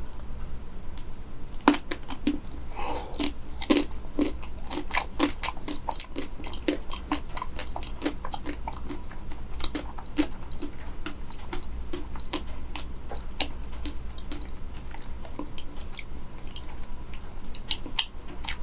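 Biting into and chewing a frozen banana coated in a hardened matcha chocolate shell: the crisp shell cracks in many sharp crunches, the first and loudest bite coming a little under two seconds in, then steady chewing. The shell is crisp, which is what is being tested.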